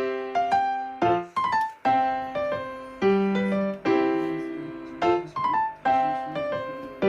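Background music: a light piano melody of short struck notes, repeating a phrase about every two seconds.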